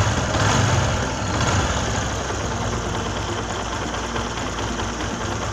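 Motorcycle engine idling steadily, a little louder in the first second, after its loose timing chain was taken up by a chain tensioner packed out with a welded-on bolt. It runs fairly smooth and close to normal.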